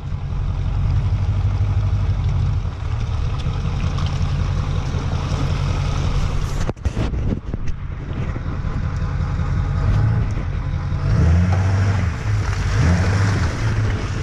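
Lifted diesel pickup truck driving along a muddy trail: a steady, low engine rumble with its tyres working through mud and slush. The sound breaks off briefly about halfway through.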